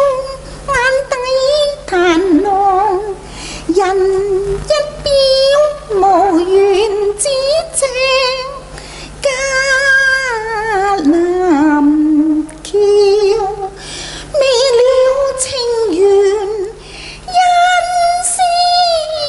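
A woman singing a Cantonese opera song in a high voice, with long ornamented notes that slide and waver in pitch, broken by short pauses between phrases.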